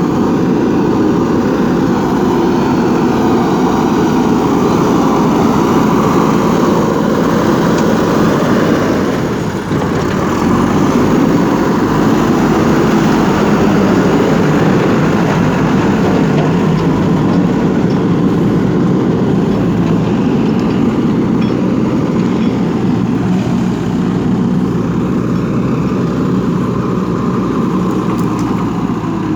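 Diesel engine of a JCB 3DX backhoe loader running steadily under work, a loud continuous rumble with a brief dip about nine and a half seconds in.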